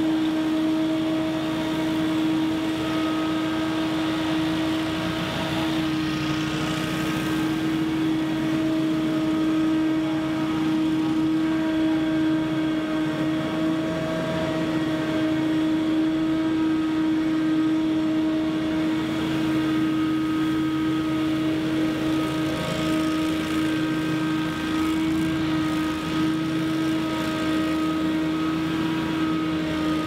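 A Scag Windstorm stand-on leaf blower and a backpack leaf blower running together at full power, a steady engine-and-fan drone that holds the same pitch throughout.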